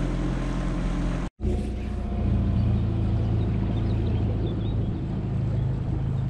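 Motorboat engine running steadily under way, a low drone. The sound drops out for an instant a little over a second in, then returns with a slightly deeper, stronger drone.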